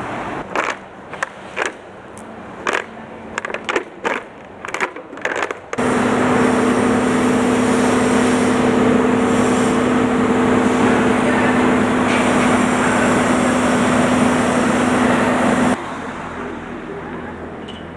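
Sheet-metal workshop machinery: a string of sharp metallic clacks and knocks, then a loud steady machine hum with a whine, like a hydraulic power unit running. About ten seconds later it stops abruptly, leaving a quieter background hum.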